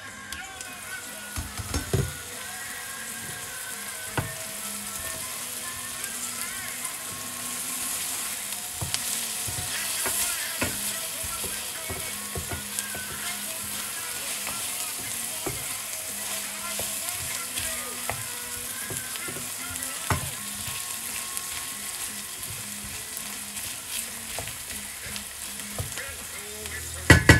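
Food sizzling steadily as it fries in a pan, with a utensil knocking and scraping against the pan now and then as it is stirred. The loudest knocks come near the end.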